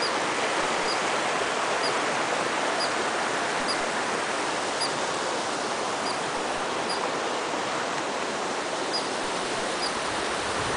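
Mountain stream's steady rush of running water, with a small animal's short, high alarm chirps repeating about once a second.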